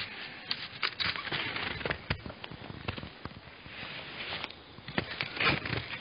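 Cross-country skis and poles moving through snow: irregular crunches and crackles over a swishing hiss.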